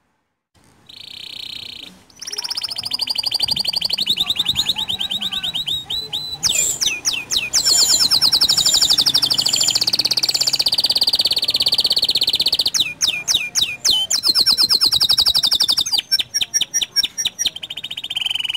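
Local canary singing a long song of fast trills and rolls, starting about a second in and turning choppier near the end.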